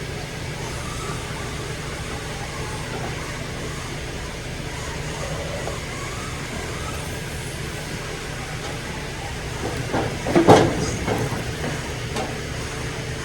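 Milking equipment running through its rinse-and-wash cycle: a steady mechanical din with a low hum. A loud, sudden burst of noise comes about ten and a half seconds in.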